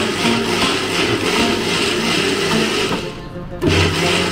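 Electric blender grinding chutney: it runs, stops for about half a second around three seconds in, then runs again.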